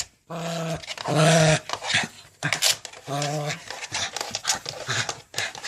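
A dog's voice: three short, steady-pitched vocal sounds about half a second each, the second the loudest, with sharp clicks between them. The dog is worked up over a smoke detector it is trying to get at.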